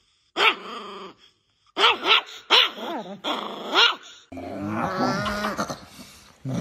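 Chihuahuas growling and grumbling: first a string of about six short, sharp yapping growls with rising-and-falling pitch, then, from about four seconds in, a steadier continuous growl.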